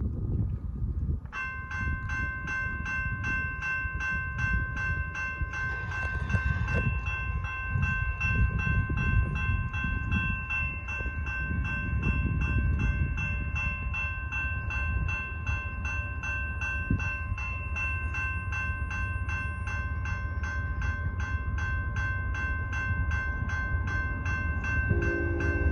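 Railroad crossing warning bell starting to ring about a second in, a fast, steady clanging that keeps going while the gates lower. Near the end the approaching BNSF locomotive's horn comes in.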